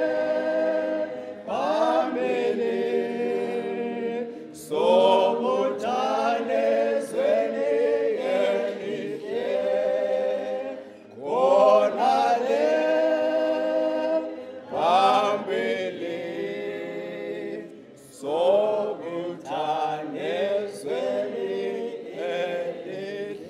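Group of voices singing a cappella, without instruments, in phrases a few seconds long with short breaks between them. The singing fades out near the end.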